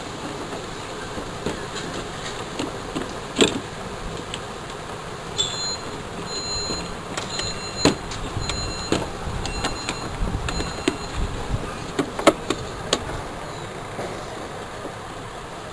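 Scattered plastic knocks and clicks as a small sealed lead-acid battery is handled in a digital scale's battery compartment and the plastic cover is pushed back into place, the sharpest knocks about three and a half, eight and twelve seconds in. A steady hum runs underneath.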